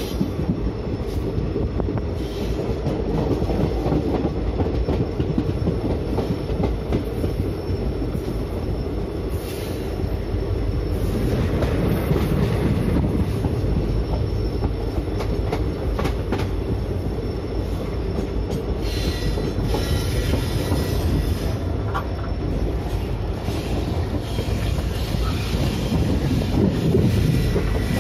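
Yoga Express passenger coaches running along the track, heard from an open coach doorway: a steady wheel-and-rail rumble with occasional clicks. A thin wheel squeal comes in during the second half.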